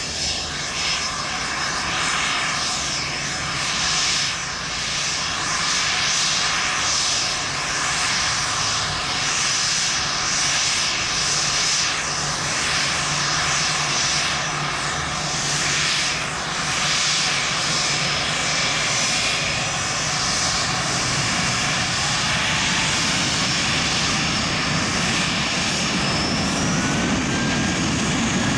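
Gulfstream business jet's two tail-mounted turbofan engines running at taxi power as it taxis, a steady rushing hiss with a thin high-pitched whine over it.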